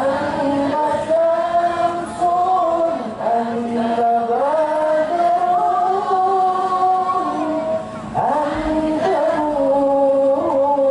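A man singing an Islamic sholawat into a microphone over a PA system: long held notes that bend slowly up and down in ornamented runs, with short breaks about three and eight seconds in.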